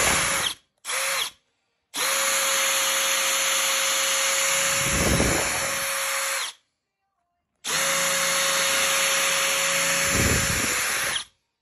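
Electric drill running at a steady speed, spinning a brake-caliper clamp nut held in its chuck against a polish-loaded rag to polish it. Two short bursts near the start, then two runs of about four seconds each.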